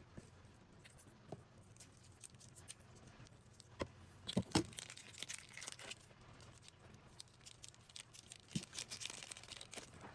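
Crinkling and tearing as squishy slime balls are torn open and emptied by hand, with scattered sharp clicks and a few louder cracks about four seconds in.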